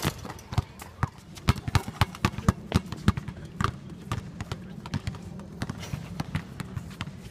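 Basketball being dribbled and players' footsteps on a court: many irregular sharp thuds, a few a second.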